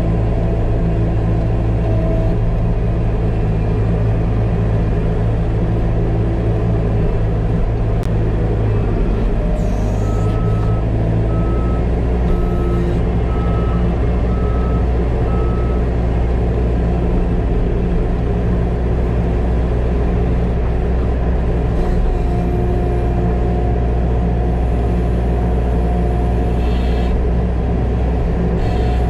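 New Holland C328 compact track loader's diesel engine running steadily under work, heard from inside the cab. Partway through, a backup alarm beeps six times, about a second apart.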